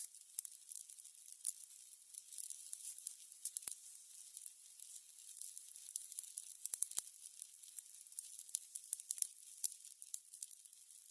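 Burning candles crackling: a steady, irregular patter of small, high-pitched crackles and pops over a faint hiss, with a few louder pops scattered through.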